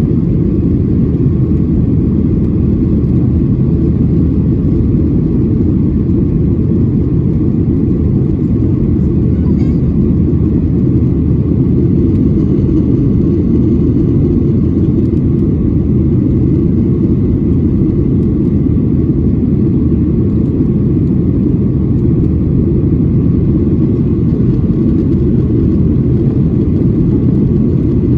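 Airliner cabin noise heard from inside the plane in flight: a loud, steady low rumble of engines and rushing air that does not change.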